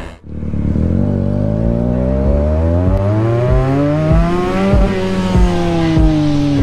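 A motorcycle engine accelerating, its pitch rising steadily for about four seconds, then easing off and falling.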